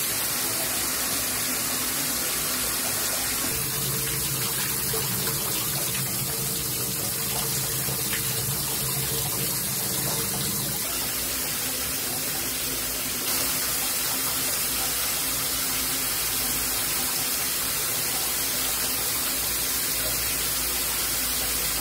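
Shower water spraying steadily, a little louder from about 13 seconds in.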